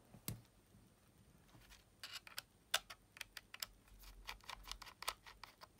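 Faint, irregular light clicks and taps of a small screwdriver tip working at the casing of a Sony WM-EX900 cassette Walkman to open it, bunching into a quick run of clicks about two seconds in.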